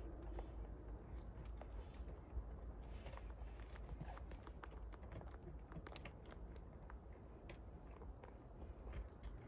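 Rabbits chewing: a faint, irregular run of small crisp crunches and clicks over a low steady rumble.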